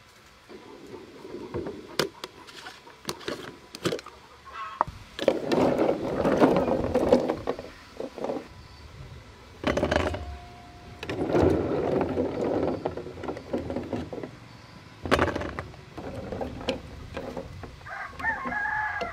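A rooster crowing several times, each call lasting a second or more. Between the crows come sharp clinks of a metal spoon against a glass jar and pickled fruit clattering onto a metal tray.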